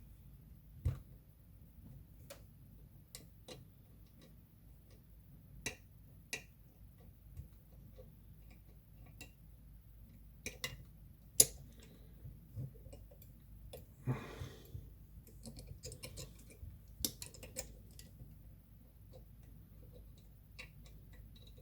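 Wire lever pick and tension tool working inside an ERA 975 five-lever padlock: irregular small metallic clicks and taps as the levers are lifted, with a short scrape about two-thirds of the way through. The thick tension tool leaves little room for the pick.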